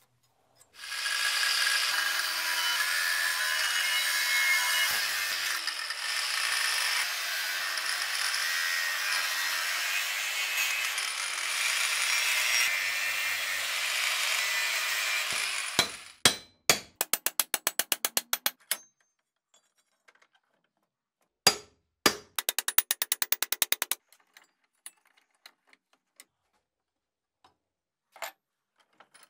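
A power tool works metal under load for about fifteen seconds, then stops abruptly. It is followed by two short runs of rapid, evenly spaced clicking and a few single clicks.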